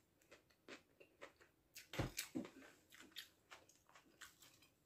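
Faint chewing: scattered wet mouth clicks and small crunches of someone eating a mouthful of food, with a soft thump about two seconds in.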